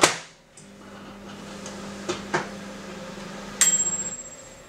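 Mechanical-dial microwave oven: a loud click as the timer knob is turned, then the oven hums steadily while heating, with a couple of faint clicks. Near the end the timer bell dings once, ringing away as the hum stops, signalling that the cooking time is up.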